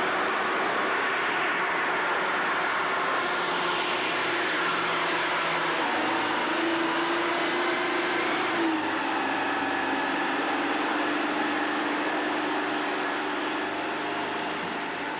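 A large engine running steadily, with a constant mechanical drone whose note changes slightly partway through.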